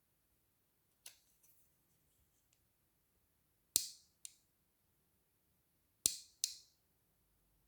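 Five sharp clicks in a quiet room: one about a second in, then two pairs close together, near the middle and later on.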